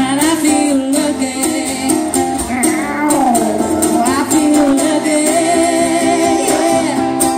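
Live acoustic cover song: acoustic guitar and ukulele strumming a steady rhythm under male and female voices singing together in harmony.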